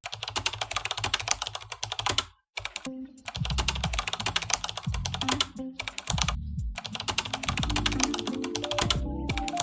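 Rapid, continuous computer-keyboard typing clicks over background music, the clicking stopping briefly a few times.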